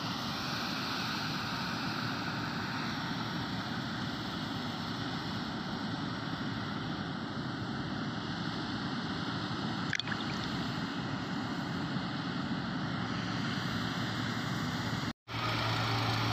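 New Holland 8070 combine harvester running steadily under load while cutting wheat, its engine and threshing machinery making a dense, even noise. The sound cuts out for a split second near the end.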